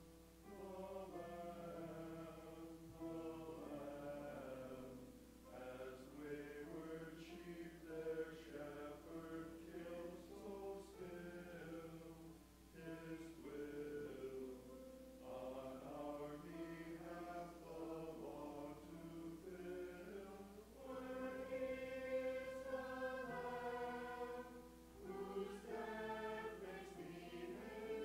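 Church choir singing a hymn in phrases, with short breaks between lines. It grows louder and higher in the last third.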